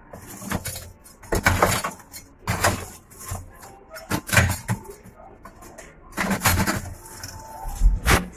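Lumps of charcoal clattering and scraping as they are moved with tongs in a stainless-steel barbecue firebox, in about six separate bursts.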